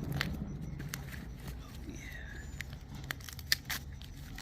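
Packaging being handled and opened: scattered light clicks, taps and rustles of box and wrapping.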